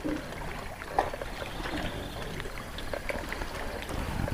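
Water lapping against a small fishing boat's hull, with a low rumble and scattered small clicks and knocks of handling, one sharper click about a second in.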